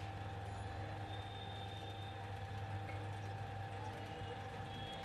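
A steady low mechanical hum with a faint constant whine above it, over the even noise of an outdoor street.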